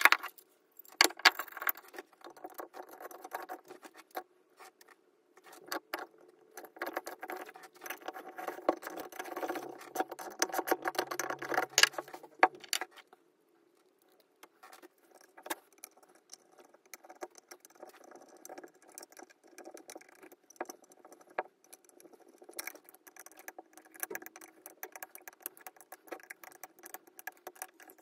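Small metal and rubber parts being handled and fitted on a bare two-stroke chainsaw engine: irregular clicks, taps and light rattles, with a screwdriver tightening the exhaust block-off. There is a brief quiet pause about halfway through.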